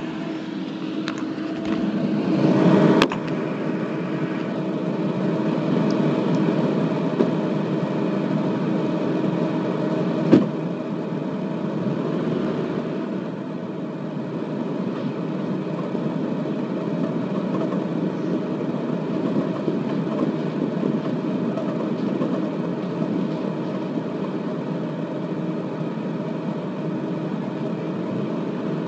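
Car driving slowly, with a steady engine and road noise and a constant low hum. A couple of short clicks break in, about three and ten seconds in.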